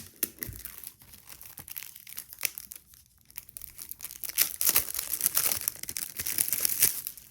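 Packaging crinkling and rustling as planner inserts are handled and unwrapped: a dense run of crackles, louder in the second half.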